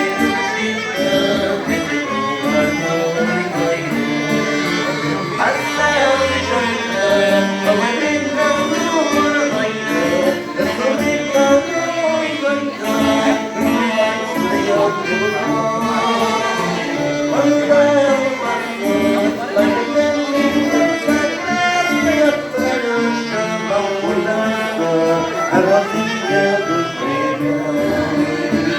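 Live dance-band music with a singer over the instruments, playing continuously.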